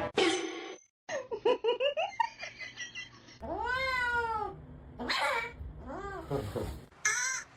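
A cat meowing: quick short chirps, then several long drawn-out meows that rise and then fall in pitch.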